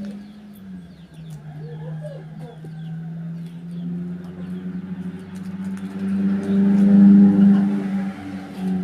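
A motor vehicle engine running steadily, its level rising toward the end, with faint bird chirps in the background.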